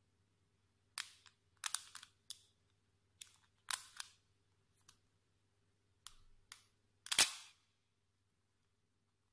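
Small neodymium cube and ball magnets snapping together as a magnet sculpture is folded and pressed by hand: about ten sharp metallic clicks at uneven intervals, some in quick clusters, the loudest about seven seconds in.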